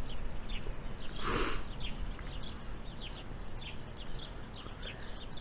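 Small birds chirping in the background, a steady string of short, quick falling chirps, with one brief breathy sound about a second in.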